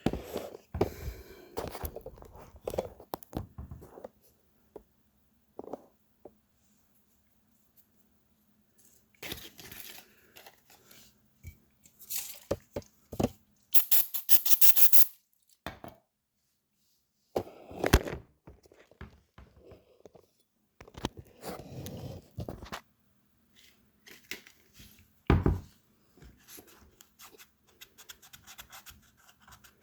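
Intermittent workshop handling sounds from working on a plastic radiator: knocks and thunks with short bursts of scraping, the longest a rapid scraping run about halfway through, and sharp knocks a little after.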